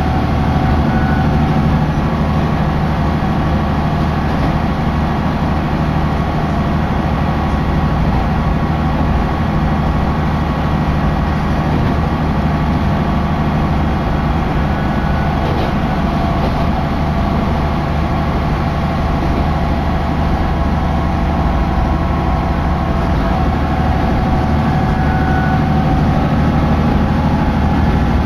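Diesel railcar running steadily along the line, its engine and running noise heard from inside the cabin as a loud, even drone.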